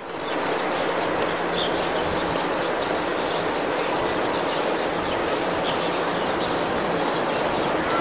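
Steady, loud city background noise: an even, dense rushing hiss with faint ticks through it, of the kind made by rail or road traffic close by.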